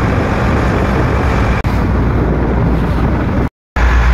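Steady noise of a motorboat under way in choppy water: a low engine rumble with wind buffeting the microphone and water rushing past the hull. It drops out briefly near the end.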